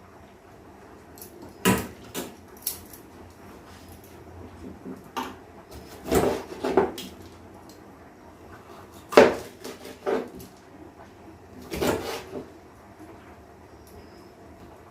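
A knife knocking on a chopping board at irregular intervals, about a dozen sharp knocks in all, as a capsicum is cut up; the loudest comes about nine seconds in.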